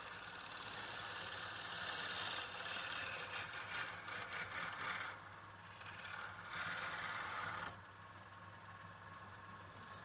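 A machine running steadily with a low hum, with a harsher scraping hiss over it that swells in stretches and drops away about three-quarters of the way through.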